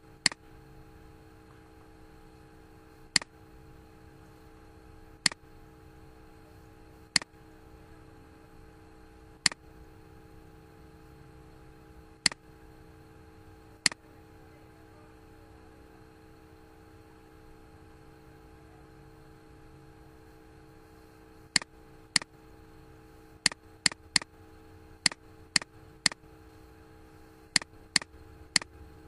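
Computer mouse clicking: single sharp clicks every two seconds or so, then after a pause a quicker run of clicks near the end, over a steady electrical hum.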